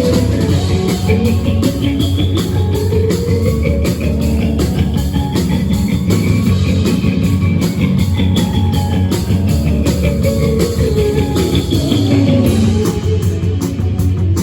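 A rock band playing, with guitar and a drum kit keeping a steady beat.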